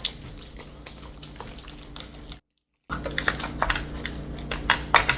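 Light, irregular clicks and taps of kitchen work over a steady low hum, cut by a brief dropout to silence about two and a half seconds in.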